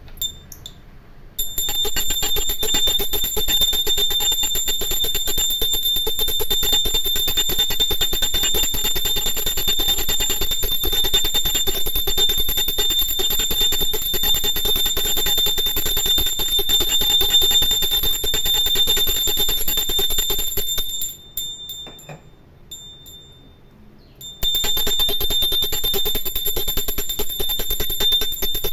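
Brass puja hand bell rung rapidly and without let-up during an aarti, a continuous high-pitched ringing that stops for about three seconds near the end and then starts again.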